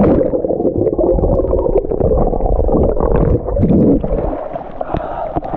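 Muffled gurgling and sloshing of pool water heard with the camera dipped under the surface. About four seconds in, the camera comes up and the water splashes and drips clearly.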